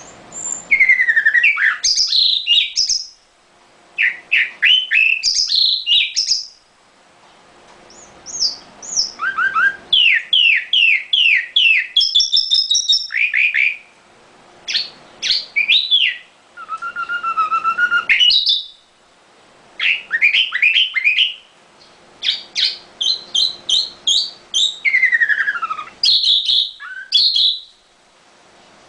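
Caged nightingale singing: a run of short, varied phrases, each a fast series of repeated whistled notes, trills and falling slurs, broken by pauses of about a second between phrases.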